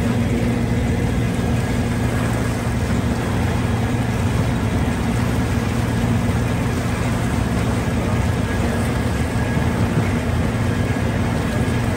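Harbour Hopper amphibious tour vehicle's engine running with a steady drone, heard from on board.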